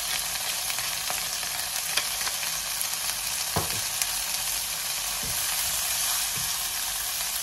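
King prawns frying in hot oil with dried chilli: a steady sizzling hiss, with a few light knocks in the middle.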